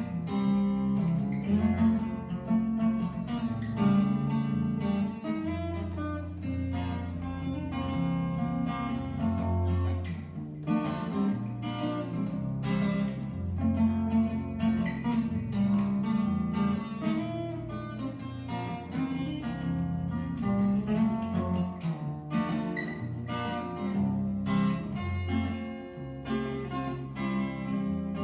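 Solo acoustic guitar played fingerstyle: low bass notes under a picked melody.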